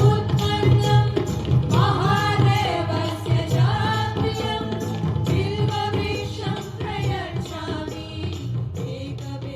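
Music: a singing voice over a steady drum beat, fading out gradually.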